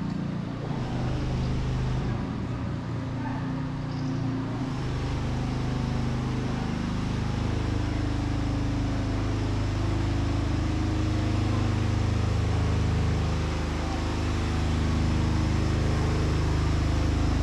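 A motor vehicle's engine running steadily, its low hum growing louder about five seconds in.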